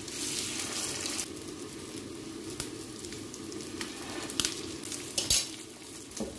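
Egg-dipped chicken shami kebab patties sizzling in shallow oil in a pan, a steady hiss that is strongest in the first second. A few light clicks come later as metal tongs turn the patties against the pan.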